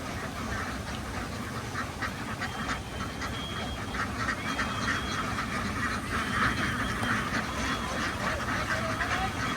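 A large flock of domestic ducks quacking, many calls overlapping into a dense, continuous chatter that grows a little louder past the middle.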